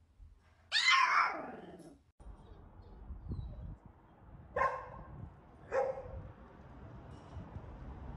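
Dogs barking: one loud drawn-out bark or yelp about a second in that falls in pitch, then two short sharp barks about a second apart past the middle, over a low steady background.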